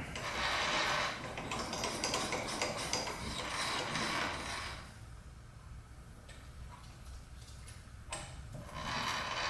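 Metal-on-metal rubbing and scraping at the X-axis end of a Bridgeport-type milling machine's table as the handwheel and micrometer dial are worked by hand. The counter wheel (micrometer dial) is rubbing, a sign that it needs one more shim. The scrape runs for about five seconds, drops away, and returns briefly near the end.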